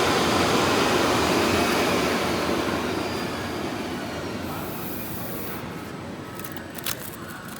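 CNC vibrating knife cutting machine running with a steady mechanical noise, which fades gradually from about two seconds in. A couple of sharp clicks follow near the end.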